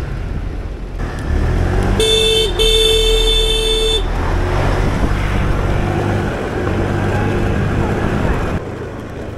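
Vehicle horn honking, a brief toot and then a longer blast of about a second and a half, over the rumble of engines and road traffic.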